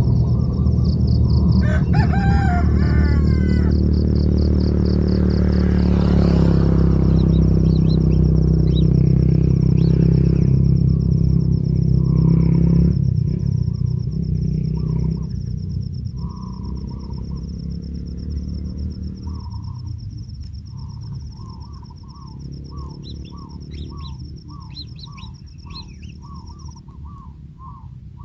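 A rooster crows about two seconds in, over a loud low engine rumble that fades away around the middle. A steady high-pitched buzz stops near the end. In the second half a bird gives short repeated calls, about two a second.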